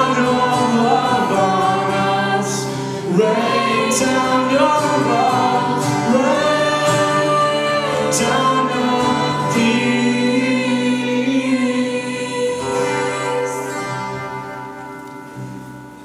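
Worship song sung by a group of voices with instrumental backing, settling on a held final chord that fades out over the last few seconds.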